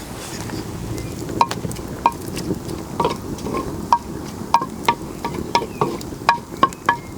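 Onions frying in olive oil in a clay pot over an open fire, with a spoon knocking against the pot about twice a second from about a second and a half in as they are stirred, each knock giving a short ringing tone.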